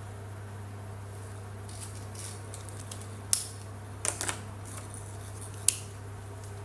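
Plastic paint-marker pens clicking and knocking against each other as markers are picked out of and set back into a row on a table: a few sharp clicks, with a short cluster about four seconds in. A steady low hum runs underneath.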